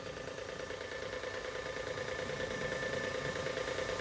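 Portable washer pump on a hand trolley, running steadily while it feeds a hose for washing the road: a constant mechanical hum with a higher whine, slowly getting louder.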